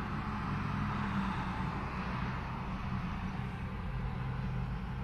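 Street traffic noise: a steady low engine hum with the hiss of tyres on the road swelling and then easing off.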